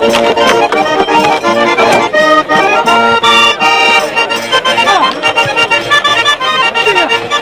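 Traditional folk tune played on an accordion, with sustained chords under a moving melody.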